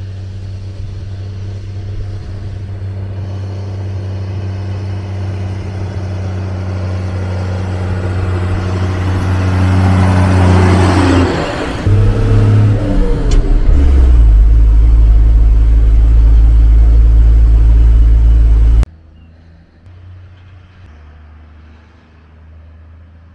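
Air-cooled Deutz diesel engine of a Magirus Deutz truck pulling away, growing steadily louder, with a brief break at a gear change about eleven seconds in, then running loud and deep under load. The sound cuts off abruptly a few seconds before the end, leaving a much quieter low drone.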